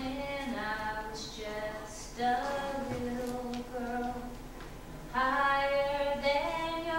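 A woman singing a slow gospel song solo and unaccompanied, in three phrases of long held notes with short breaths between them.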